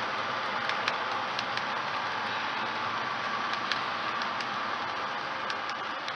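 HO-scale model freight cars rolling past on the track: a steady rolling rush with irregular sharp clicks from the wheels on the rails, beginning to fade near the end as the last car goes by.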